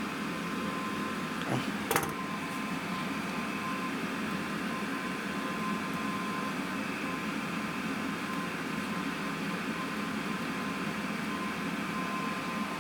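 Steady fan whir with a faint high tone running through it, and a single sharp click about two seconds in.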